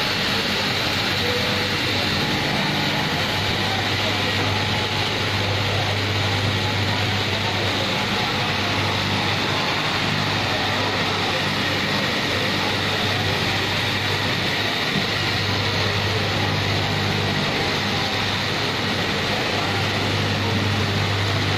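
Straight-knife fabric cutting machine running, its electric motor humming low as the reciprocating vertical blade cuts through a thick stacked lay of denim. The hum drops out briefly a few times over steady workshop noise.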